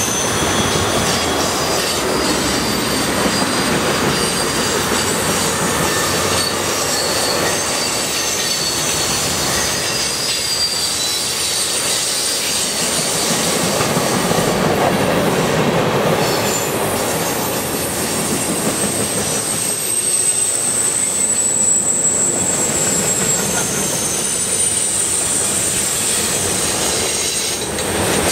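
A long freight train's cars rolling past close by, tank cars and then centerbeam flatcars loaded with lumber. The steel wheels keep up a loud, steady rumble, with high-pitched wheel squeal throughout.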